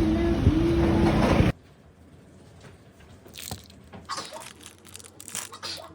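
A loud, steady rumble with a low hum cuts off suddenly about a second and a half in. Then, at a much lower level, come a series of crisp crunches and crackles.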